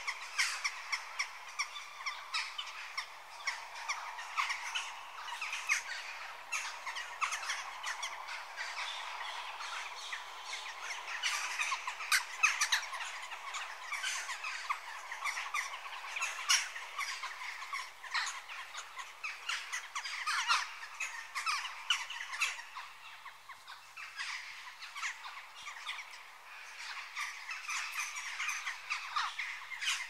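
Jackdaws calling: a dense, unbroken stream of short, overlapping calls.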